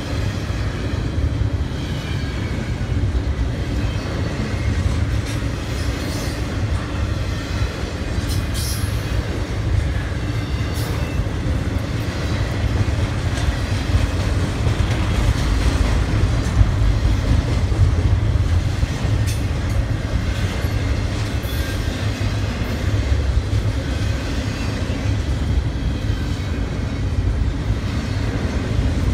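Freight train rolling past: a steady rumble of railcar wheels on the rails, with a few brief high wheel squeals.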